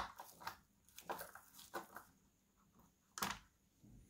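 Faint clicks and scrapes of a screwdriver with a number 4 Allen bit working a screw out of the scooter's deck, with a sharper click a little over three seconds in.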